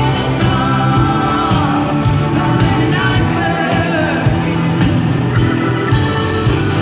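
Live rock band playing in an arena, with a woman singing over drums, guitars and keyboards, as heard from the audience seats.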